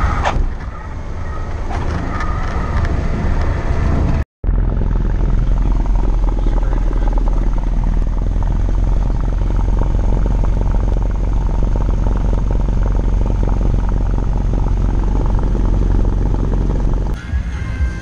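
Cessna 172's piston engine and propeller running steadily, heard from inside the cabin. The sound drops out briefly about four seconds in.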